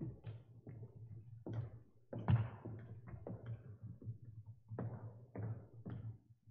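Scattered knocks, thumps and shuffling of people moving about in a church, over a low steady hum; the loudest thump comes a little over two seconds in.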